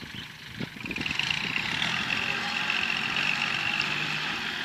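Kubota L3608 tractor's diesel engine running under load as its blade pushes soil, a steady drone joined about a second in by a steady high-pitched whine.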